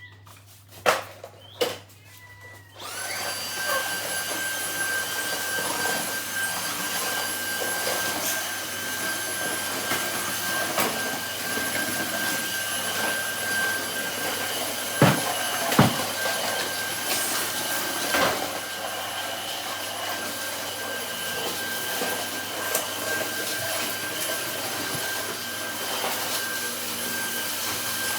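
Cordless Dyson vacuum cleaner, a few clicks and then switched on about three seconds in, running with a steady high whine. Two sharp knocks sound about halfway through.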